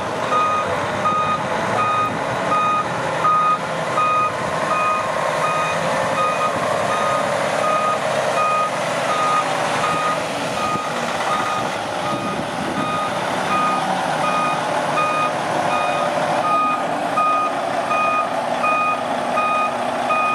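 Back-up alarm on a 2013 Freightliner Cascadia day cab tractor beeping steadily at an even pace while the truck is in reverse, over the tractor's diesel engine running.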